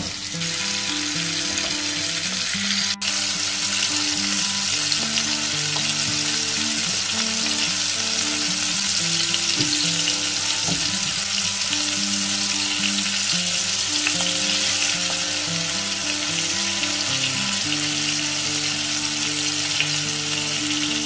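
Flour-coated asparagus spears deep-frying in a pan of very hot oil: a loud, steady sizzle of bubbling oil, with a brief break about three seconds in.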